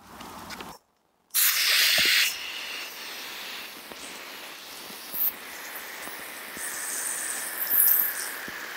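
Garden hose spray nozzle shooting a jet of water across a lawn, a hissing spray. The hiss is loudest for about a second, starting a second and a half in, then settles to a steadier spray.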